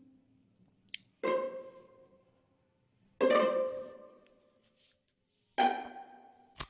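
Soft background score of single plucked notes, three in all about two seconds apart, each struck and left to ring out and fade. A short sharp click comes near the end.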